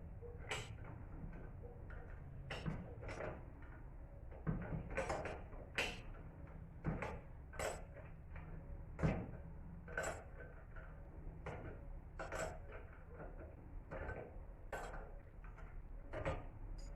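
Irregular metallic clinks and knocks of hand tools and parts being handled while a car's rear shock absorber and its mount are taken apart, the loudest knock about nine seconds in, over a low steady hum.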